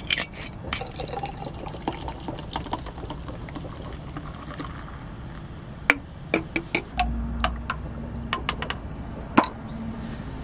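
Whisky poured from a bottle into a glass of ice, then, about halfway through, ginger ale poured from a can, foaming and fizzing as the highball fills. Ice cubes click against the glass throughout.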